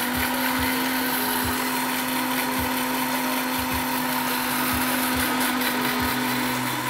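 Electric countertop blender running steadily, blending butterfly pea flowers with a little water.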